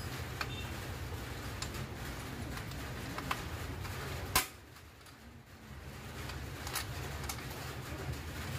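Scattered light clicks and taps from hands handling parts at a scooter's rear disc brake, with one sharper click about four and a half seconds in, over a low steady hum.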